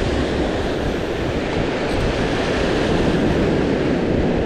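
Ocean surf breaking and washing up the beach, mixed with wind buffeting the microphone: a steady, loud rush of noise.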